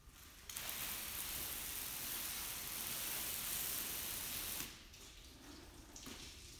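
Garden hose spray nozzle hissing as it sprays water onto a car windshield, starting suddenly about half a second in and cutting off after about four seconds; then fainter water sounds from the wet glass.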